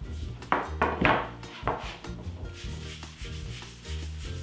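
Long wooden rolling pin rubbing and rolling over a sheet of fresh egg pasta on a wooden pastry board as the sheet is rolled up onto the pin, with a few sharp wooden knocks in the first two seconds.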